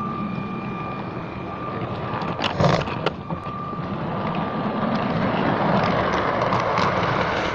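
Garden-railway model train, a Percy locomotive hauling tank wagons, running past on the track: a steady rumble of wheels on rails with a thin high tone at first that fades out. A few sharp clicks come about two and a half to three seconds in, and the rumble grows louder as the wagons pass close.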